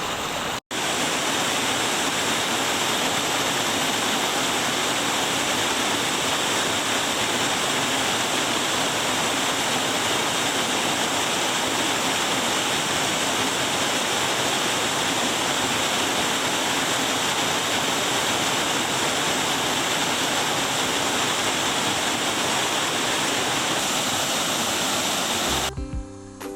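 A waterfall in a mountain stream gorge: falling water making a loud, steady rush. It breaks off for an instant just after the start and gives way to music near the end.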